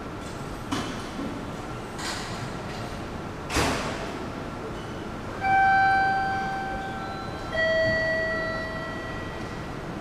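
A few sharp knocks, then a two-note descending chime, each note ringing out and fading over about two seconds: a public-address chime of the kind that comes before a station announcement.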